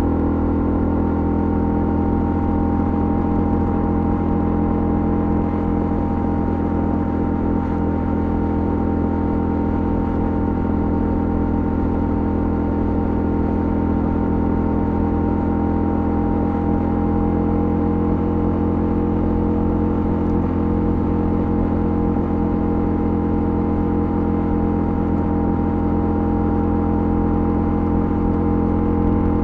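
Honda CL250's single-cylinder engine running at a steady speed while the motorcycle cruises, its note holding an even pitch throughout.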